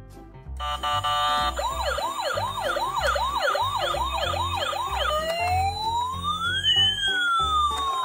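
Electronic siren sound from a battery-operated toy ambulance. It opens with a short steady tone, then runs a fast yelping sweep about three times a second, and switches near the middle to a slow wail that rises and then falls.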